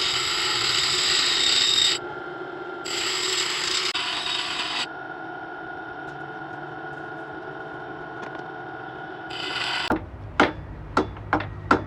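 Sawmill saw blade being sharpened: two long rasping strokes of metal on the saw teeth, then a quieter steady whine. About ten seconds in, a low machine hum starts, with about six sharp clicks.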